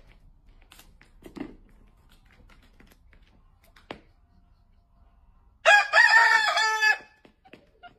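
Rooster crowing once, loud, lasting about a second and a half, about six seconds in; a few faint taps come before it.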